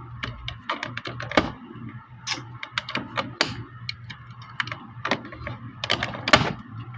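Irregular clicks and taps of a plastic action figure and its packaging being handled while a rubber band holding it in place is worked off, over a low steady hum.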